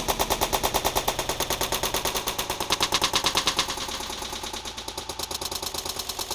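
Airsoft rifle firing a long, rapid full-auto string of shots, with steady, evenly spaced cracks that grow somewhat fainter about halfway through.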